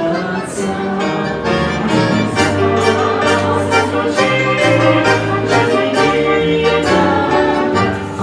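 Instrumental interlude of a song: full backing music with sustained melody notes and a steady beat, with no singing.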